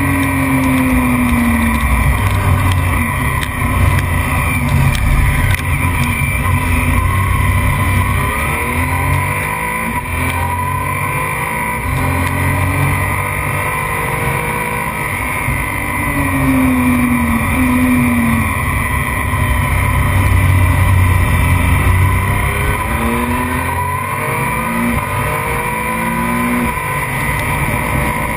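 Racing motorcycle engine at full throttle, its pitch climbing in repeated runs and dropping between them as it shifts up through the gears and slows for corners.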